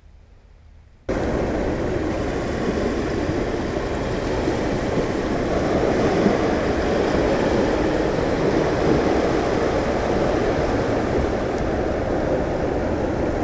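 Steady rushing noise of the seashore, wind and sea, starting abruptly about a second in.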